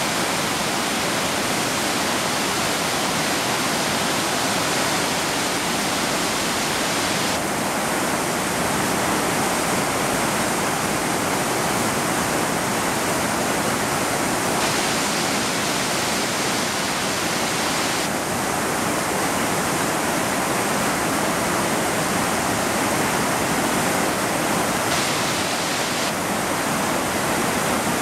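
Floodwater pouring over the full width of a river weir into churning whitewater: a steady rushing noise. The river is in flood. The high hiss of the noise thins and returns several times.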